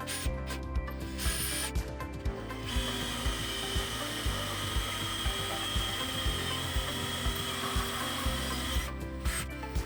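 Power drill boring through steel tube framing in a bus wall: a few short stop-start bursts, then a steady high whine of the bit cutting steel for about six seconds, which stops near the end.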